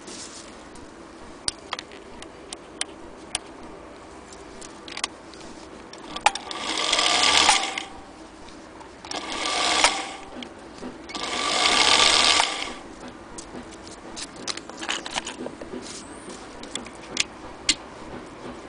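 Singer Featherweight 221 sewing machine motor running in three short bursts, each a second or two long. Scattered sharp clicks and taps come before and after the bursts.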